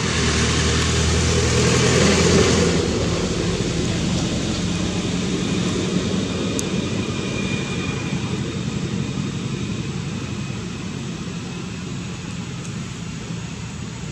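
Engine of a passing motor vehicle, a steady low drone that is loudest about two seconds in and then slowly fades away.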